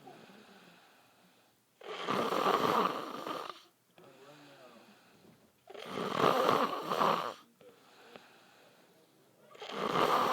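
A man snoring loudly in his sleep: three long snores about four seconds apart, each lasting nearly two seconds, the third starting near the end.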